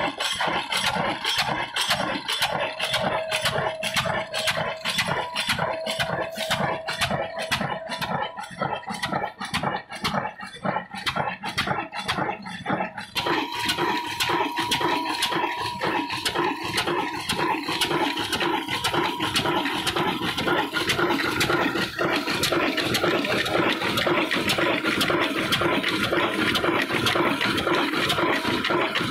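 Old Ruston stationary diesel engine running at a steady speed, beating in a quick, even rhythm. About halfway through, the sound turns into a denser, rushing mix that partly covers the beat.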